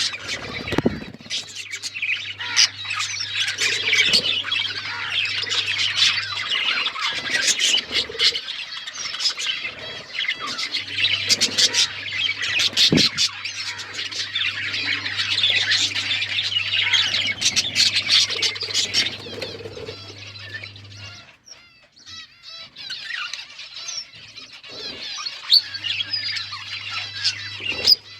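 Several budgerigars chattering: a dense, continuous mix of warbling chirps and squawks. It drops off briefly about three-quarters of the way through, then resumes more softly.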